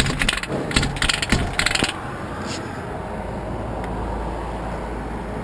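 Metal clinking and rattling in about four quick bursts over the first two seconds as a mortise lock cylinder in an aluminium glass door is worked out during through-the-lock forcible entry. A single click follows, then a low steady hum.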